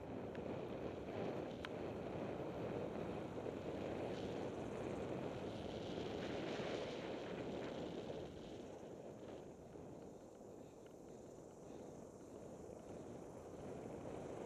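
Wind rushing over the camera microphone and tyres rolling over a dirt trail as a mountain bike descends forest singletrack, a steady noise with a few faint clicks from the bike.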